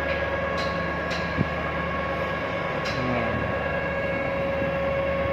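Steady drone of heavy machinery with several held tones in it. A few light clicks come over it, and one short thump about one and a half seconds in.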